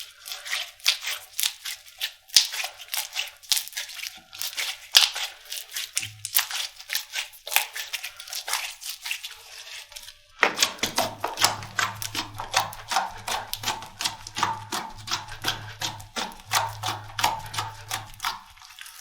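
Slime being squeezed and poked by hand, making dense, irregular crackling and popping clicks. About ten seconds in the texture changes and becomes fuller, with a low steady hum under it.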